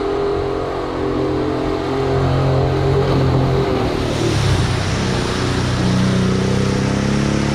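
Mitsubishi Pajero 3.0 V6 engine held at high revs under heavy load as the wheels churn through deep mud. The revs dip about four seconds in, then climb and hold high again, with mud splashing from the spinning tyres.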